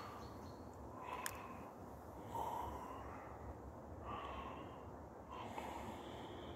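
A person breathing close to the microphone, soft breaths about every one and a half seconds, with one sharp click a little over a second in.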